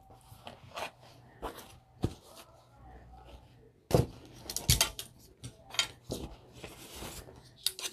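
Rustling and crinkling of a polyester jersey shirt and its stiff, papery fusible stabilizer backing being handled and turned over, with scattered light clicks and knocks on the table, busiest in the second half.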